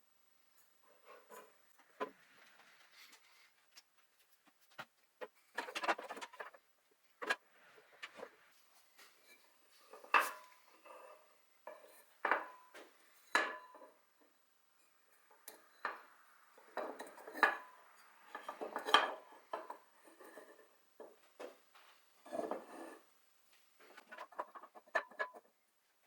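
Irregular knocks, clicks and clatter of hard objects being handled and set down, some of it wood on wood, with quiet gaps between; no saw is running.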